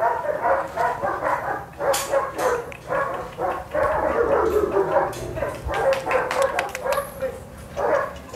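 German Shepherd puppies barking and yipping in rapid, repeated calls, several short yelps a second.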